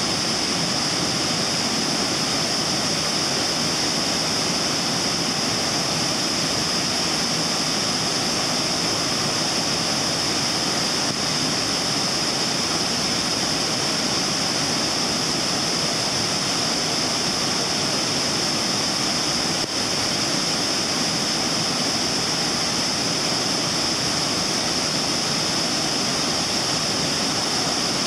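Burney Falls waterfall, its many streams pouring down the cliff into the plunge pool, making a steady, unbroken rush of falling water with a strong high hiss.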